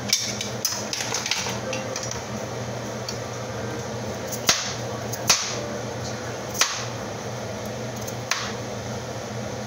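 Kitchen knife cutting potatoes on a plastic cutting board: several irregular, sharp knocks as the blade goes through and strikes the board, the loudest a few seconds in, over a steady low hum.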